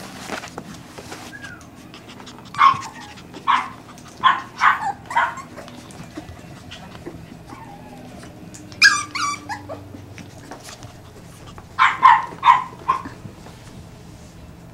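Peekapoo puppies yapping in short, high yips a few at a time, with a higher-pitched yelp about nine seconds in.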